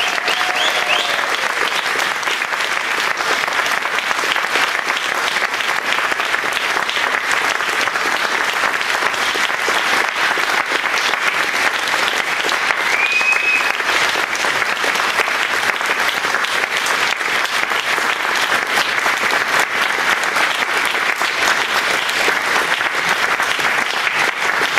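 Audience applauding, sustained even clapping from a roomful of people, with a single short high tone about halfway through.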